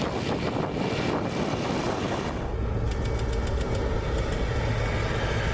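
A vehicle driving over the runway during a runway friction test, with steady engine and tyre noise. About two seconds in, the low rumble grows stronger.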